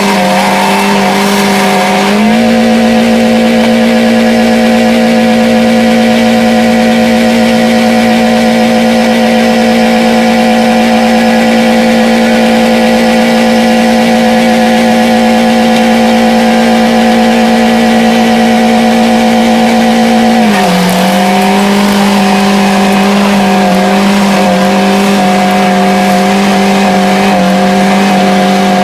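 Car engine held at high revs, steady and loud, being run flat out to blow it up. Its pitch steps up slightly about two seconds in and drops back a little near the end.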